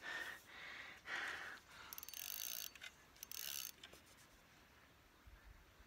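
Faint rustles and clicks of fishing tackle being handled, the rod, baitcasting reel and line worked while a small largemouth bass is unhooked, in a string of short bursts over the first four seconds.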